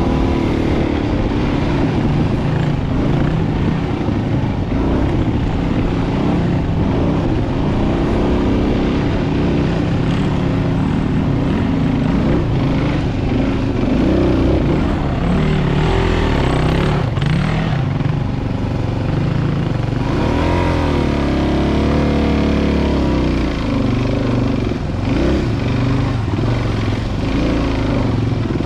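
Dual-sport motorcycle engine running as it rides a rough trail, its pitch rising and falling with the throttle, with a rev up and back down about twenty seconds in.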